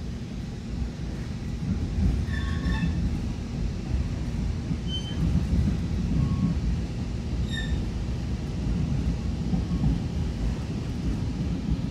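Metra Nippon Sharyo bi-level coach rolling along the track: a steady low rumble of wheels on rail, with three short, high-pitched wheel squeals about two, five and seven and a half seconds in.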